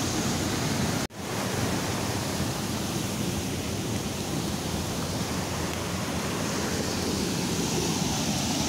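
Steady rush of flowing river water, cutting out for an instant about a second in.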